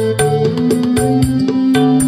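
Recorded keyboard-led music with a moving bass line, played loud through an Ashley TW212LA line array speaker (two 12-inch woofers and two tweeters). The speaker is fed straight from a phone into a power amplifier, with no mixer, EQ or processor.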